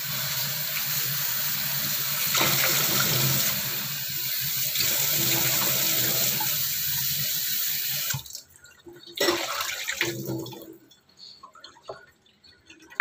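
Kitchen tap running into a sink as cut long beans are rinsed in a bowl, a steady rush of water that shuts off about eight seconds in. A few short knocks and splashes follow.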